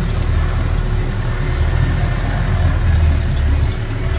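Land Rover Series off-road jeep engines running at low revs as they crawl along a rutted, muddy track: a low, uneven rumble that swells about three seconds in.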